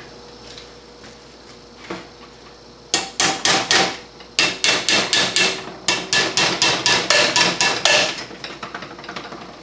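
Hammer tapping on the valve spring retainers of a Chrysler 383 big-block cylinder head to seat the valve keepers: about twenty sharp, ringing metallic taps in three quick runs, starting about three seconds in and ending about eight seconds in.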